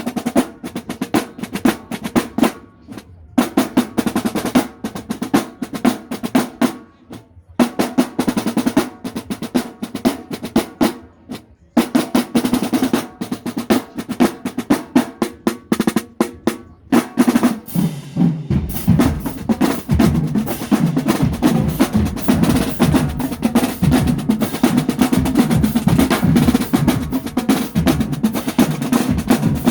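Marching band drumline playing a cadence: rapid snare drum strokes and rolls, broken by brief pauses, with the deeper drums joining for fuller playing about two-thirds of the way through.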